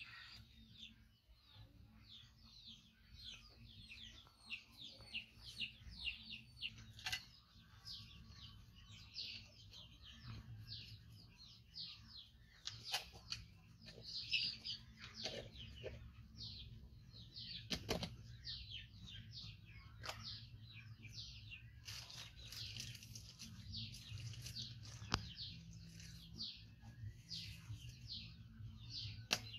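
Small birds chirping over and over, short high falling chirps several a second, with a few sharp clicks or knocks in between.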